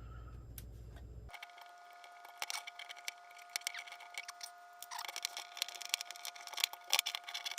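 Irregular small clicks, taps and light metallic rattles as cells are pulled off a lithium iron phosphate battery pack being taken apart by hand. A faint steady high whine sits underneath from about a second in.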